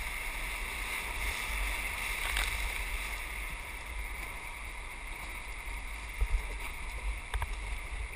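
Whitewater rapids rushing steadily around an inflatable raft, heard up close with a low rumble, and a couple of brief sharp knocks from the paddling a little after six seconds and again about a second later.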